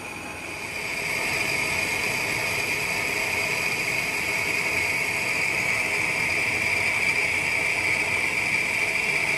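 Metal lathe boring out a cast iron sleeve with a CBN-insert boring bar: a steady cutting hiss with a high whine on top, growing louder about a second in.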